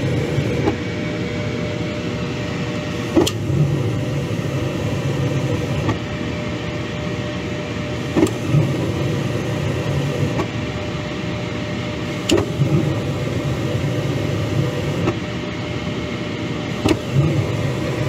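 Gas furnace burners being shut off and relit several times, with a sharp click every two to three seconds. Each time the burners come back on they light with a low puff, four times, over a steady running hum. The cycling tests whether the standing pilot stays lit when the main burners go out.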